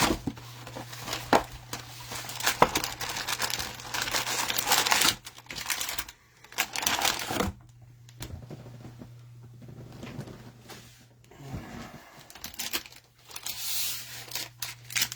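Plastic cellophane wrapping crinkling and tearing in stretches, with sharp handling clicks, as a box of cello-wrapped trading card packs is unwrapped and opened. A steady low hum runs underneath.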